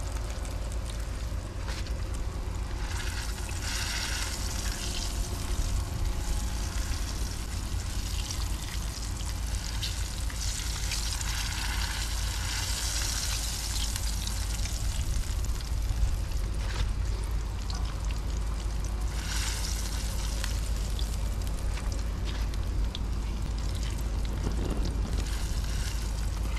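Morel mushrooms frying in hot oil in a cast-iron skillet as they finish cooking: steady sizzling and bubbling that swells louder several times as pieces are turned with a fork.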